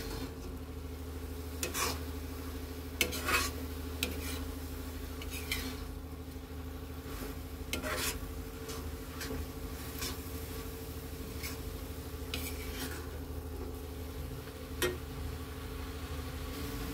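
Steel ladle stirring and scraping thick beetroot-and-carrot halwa around an iron kadai, with irregular scrapes and clinks against the pan over a steady low hum. The halwa is in its last minutes of cooking down to a thick, nearly dry mass.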